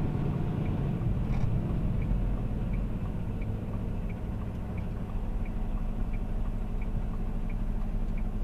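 Semi-truck's diesel engine idling, heard from inside the cab as a steady low rumble, with a turn-signal flasher ticking a little under twice a second.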